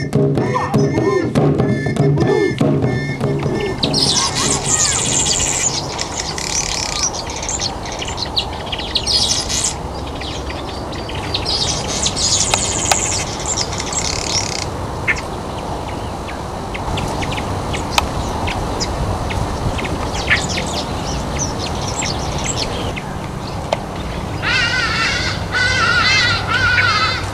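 Music in the first few seconds gives way to birds calling: runs of rapid high chirps, scattered short calls, and a louder wavering chatter near the end.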